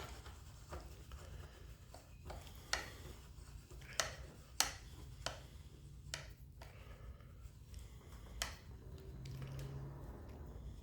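A few sharp, irregular clicks and taps as a small clamp is fitted and tightened onto a glued plastic fridge door frame, over a faint low hum.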